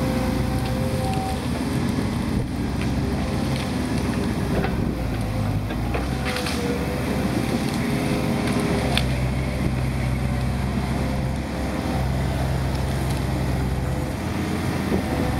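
Volvo 210 hydraulic excavator's diesel engine running under load, its pitch shifting as the hydraulics work while it grabs and swings brush. A few sharp cracks and knocks of brush and branches being handled.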